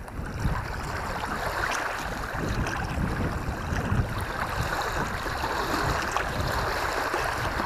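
Small choppy waves washing and breaking onto a stony shore, with wind buffeting the microphone in irregular low gusts.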